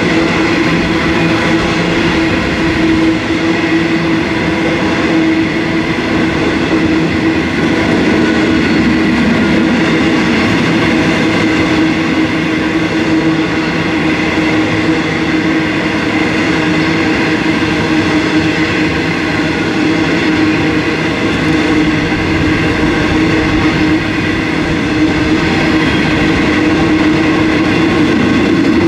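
Empty coal hopper wagons of a long freight train rolling slowly past: a steady rumble of steel wheels on rail, with a constant tone running through it.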